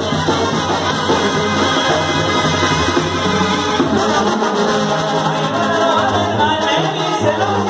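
Live Mexican banda music: a brass band of trumpets, trombones, clarinets and tuba playing together, with a male vocalist singing over them.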